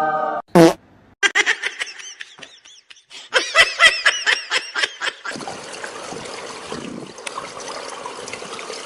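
High-pitched, squeaky cartoon-style giggling in two quick bursts, after a short falling squeal. A steady hiss follows about five seconds in.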